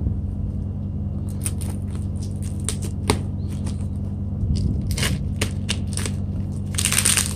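Bubble wrap around a boxed scale crinkling and crackling as the package is handled and turned over: scattered short crackles, with a louder rustle near the end, over a steady low hum.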